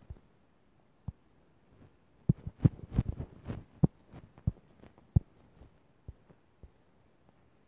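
Fingertip taps and knocks on a phone's touchscreen: irregular dull thumps, bunched together about two to four seconds in, then a few scattered ones.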